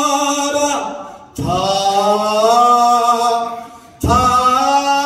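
A man's voice chanting an unaccompanied elegiac recitation in long, drawn-out, wavering notes. One phrase ends about a second in, a second is held and then fades, and a third begins about four seconds in.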